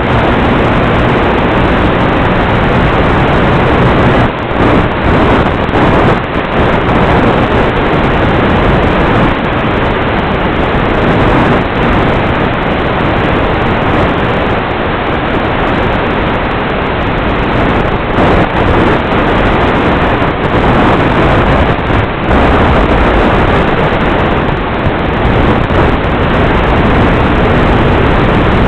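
Loud, steady rush of wind and electric motor noise from the small foam flying wing's onboard FPV camera microphone in flight, with brief dips in level every few seconds.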